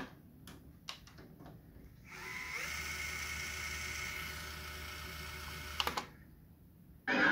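Sony EV-S9000E Hi8 video cassette recorder's tape transport. A few mechanism clicks come first, then the reel motor spins up with a rising whine and whirs steadily as the tape winds at high speed. It stops with a sharp clunk about six seconds in, and the recorded tape sound cuts back in near the end.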